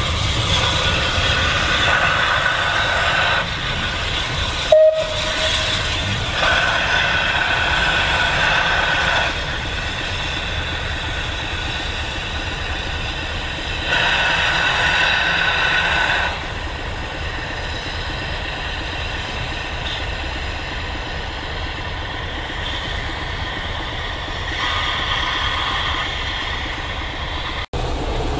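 A steam-and-diesel passenger train, L&Y Class A 0-6-0 tank engine 52322 with Class 24 diesel D5054, running slowly past with a steady low rumble. Several spells of high, steady tones of two or three seconds each come over the rumble.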